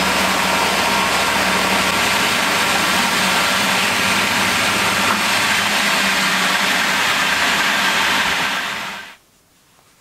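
Milling machine running steadily, its end mill cutting a brass workpiece. The sound fades out about nine seconds in.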